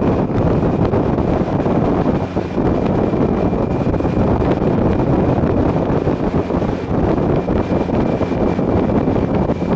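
Motorcycle riding at a steady cruising speed: wind rushing over the microphone, mixed with engine and road noise, and a faint steady high whine over it.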